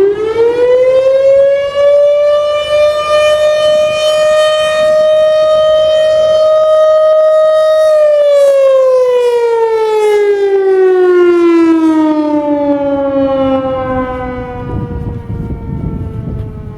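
Federal Signal Thunderbolt 1000 outdoor warning siren sounding the attack signal. Its loud tone rises over about two seconds, holds steady for about six seconds, then slides slowly down in pitch, with a low rumble coming up near the end.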